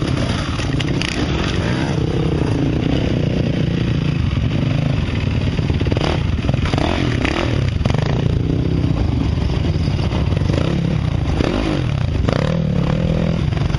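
Dirt bike engine revving hard and unevenly as the trail bike is forced over a log, the pitch rising and falling with the throttle. Clatter and scraping of the bike against the wood come through around the middle.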